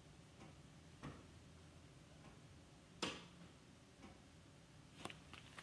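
Near silence: faint room tone with three short, soft clicks about two seconds apart, the middle one the loudest.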